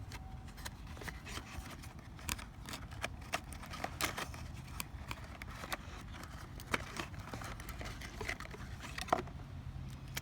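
A cardboard box of contact lenses being opened and handled by hand: scattered small clicks, taps and rustles of packaging.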